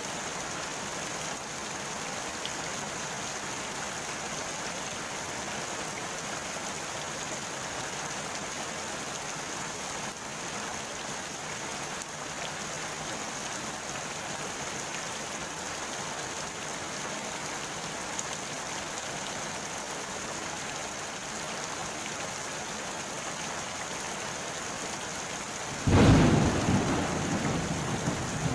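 Steady rain falling on a pond's surface, an even hiss. Near the end a sudden loud clap of thunder breaks in and rumbles on, slowly fading.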